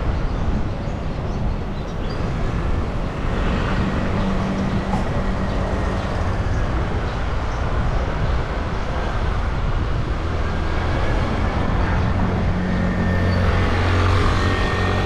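Wind and road noise on a handlebar-mounted GoPro during a road bike ride, with the low engine hum of motor traffic, strongest near the end.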